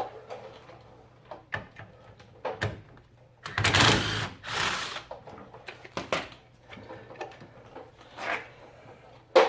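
Small cordless impact wrench running for about a second and a half, spinning out a loosened hub-retaining bolt, with scattered clicks and clinks of metal tools and bolts around it.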